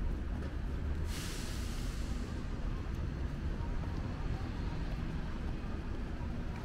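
Steady low rumble of street traffic and wind on the microphone. About a second in, a large vehicle's air brake lets out a sudden sharp hiss that fades over about a second.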